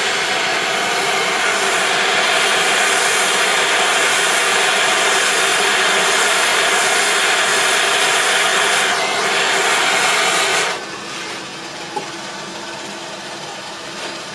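Power tool grinding and polishing the base of a blown-glass piece so that it sits evenly: a loud, steady grinding noise that cuts off about eleven seconds in, leaving a quieter steady hum.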